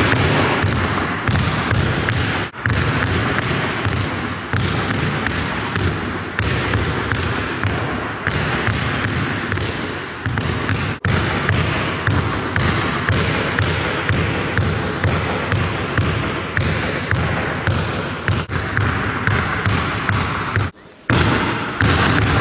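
Basketballs being dribbled on a hard court, many bounces overlapping in a quick, uneven patter; it cuts out for a moment near the end.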